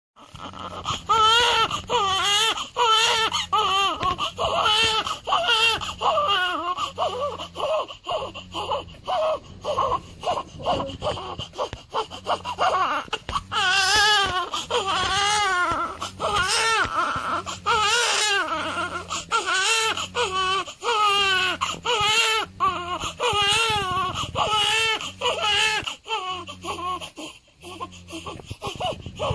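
Newborn baby crying hard, one wavering wail after another with only brief catches of breath between.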